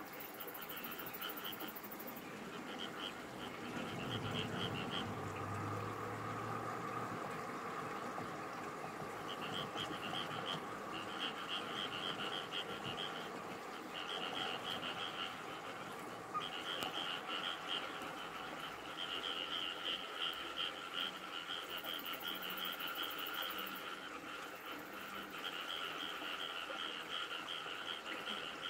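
Frogs calling at night: bouts of rapid, pulsing croaks lasting one to two seconds, repeated with short gaps, over a steady background chorus.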